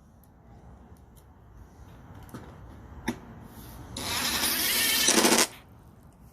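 Ratchet wrench working a 10 mm fastener: a few light knocks, then a rapid run of clicks lasting about a second and a half about four seconds in.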